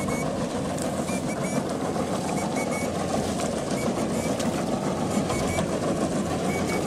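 A steady machine drone, with short high beeps repeating in twos and threes.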